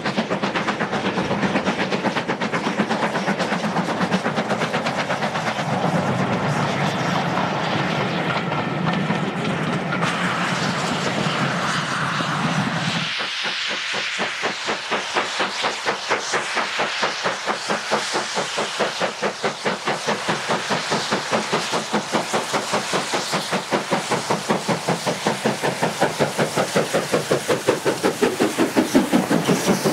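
BR Class B1 4-6-0 steam locomotive No. 61264, a two-cylinder engine, working a five-coach train with a steady run of exhaust beats and steam hiss. The sound changes abruptly about thirteen seconds in, after which the beats grow sharper and louder as the engine draws near.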